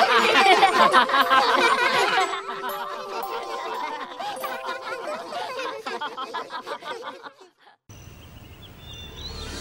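A group of cartoon characters laughing together, many voices at once, loudest in the first two seconds and then fading away. Near the end it drops almost to silence, followed by a few faint chirps.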